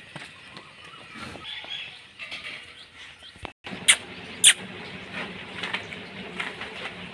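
Small high chirps over a steady background hum, cut by a brief dropout about three and a half seconds in and followed by two sharp clicks.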